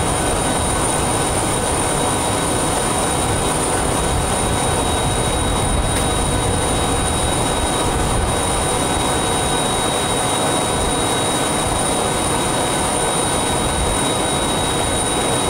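Jet aircraft turbine running steadily: a constant roar with an unchanging high-pitched whine over it.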